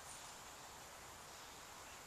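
Quiet outdoor ambience, near silence, with a faint steady high-pitched insect hum and a few faint high chirps.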